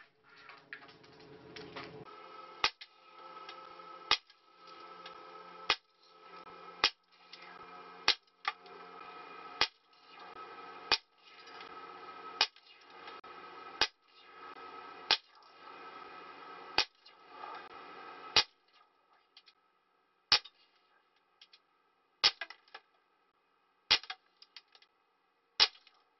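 Umarex 850 Magnum .177 CO2 air rifle firing a string of sharp shots, twelve about one and a half seconds apart, then four more spaced about two seconds apart, as pellets smash into a plastic cordless phone handset.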